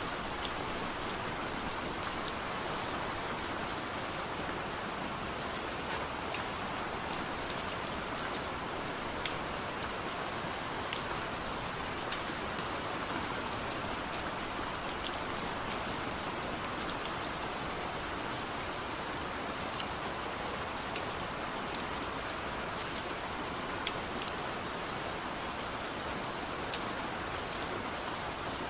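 Steady light rain falling, an even hiss of rain with scattered sharp ticks of single drops striking a surface.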